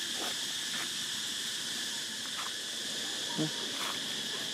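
Steady insect chorus, a continuous high-pitched buzz, with a few faint short ticks and a brief low voice-like call about three and a half seconds in.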